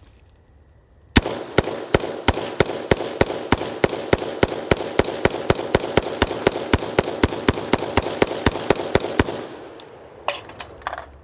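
BCM AR-15 in 5.56 firing rapid semi-automatic shots, about three a second for around eight seconds, with echo between the shots, while running uncleaned and unlubricated. Two sharp knocks follow near the end.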